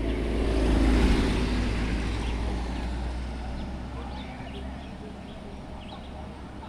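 A road vehicle driving past close by, its engine and tyre rumble swelling to a peak about a second in and then fading away over the next few seconds.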